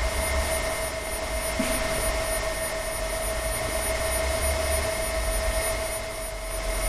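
τiD Roll iD300 direct-drive servo motor turning a large steel roller: a steady mechanical hum with a constant mid-pitched whine over a low rumble.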